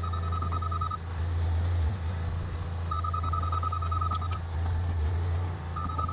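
A diesel engine running steadily under a rapid electronic warning beeper that sounds in three bursts, for about a second at the start, again around the middle and again near the end.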